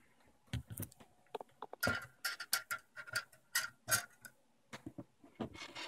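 A quick, irregular series of small clicks and light taps, densest in the middle and stopping just before the end, with a faint steady whine under the busiest part.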